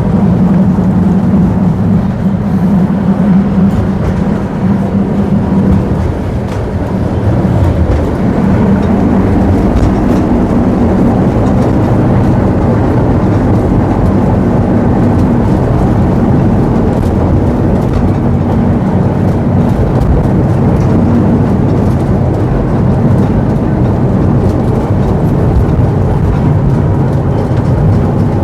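A tram running along its tracks, with a steady low motor hum and rolling wheel noise that eases briefly about five seconds in before picking up again.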